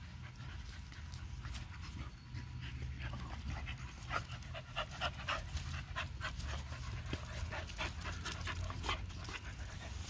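Dogs panting hard in quick, short breaths while they wrestle and play, the panting getting louder and denser a few seconds in.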